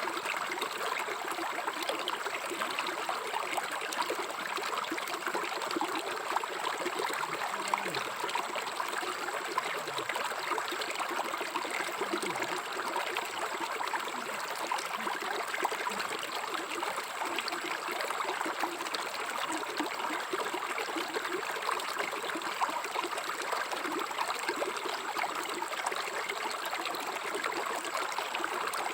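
River water flowing steadily over stones, with a dense, even rush and constant small trickles and gurgles.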